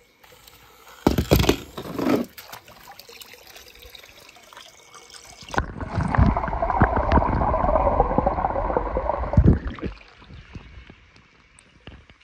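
Water splashing about a second in as a toy train goes into a swimming pool, then several seconds of muffled water gurgling heard from under the water.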